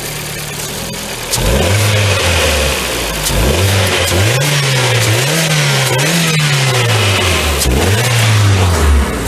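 Ford Focus 1.6 petrol four-cylinder engine (code PNDA) idling, then revved up and down repeatedly from about a second in, its pitch rising and falling several times.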